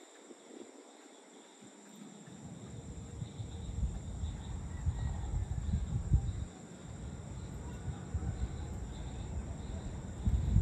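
Crickets trilling steadily at a few high pitches, under a low, uneven rumble that sets in about two seconds in and is the loudest sound, dropping away briefly just past the middle.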